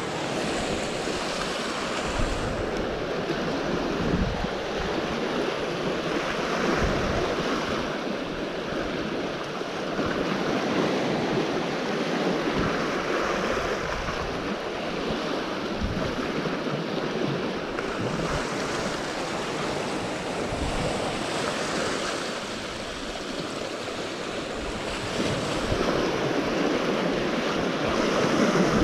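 Sea waves washing against the shore in swells that rise and fall every few seconds, with wind buffeting the microphone.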